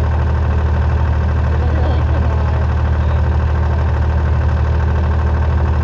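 Large engine idling steadily with a deep, even hum.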